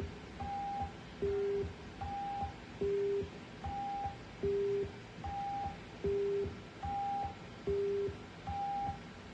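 WinSDR seismograph alert tones: a two-tone alarm of short beeps alternating low and high, about one beep every 0.8 seconds, stopping near the end. The alarm signals that the seismograph has detected earthquake shaking.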